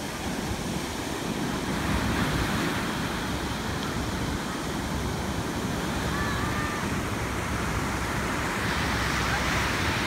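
Ocean surf washing onto a sandy beach: a steady rushing wash of breaking waves that swells about two seconds in and again near the end.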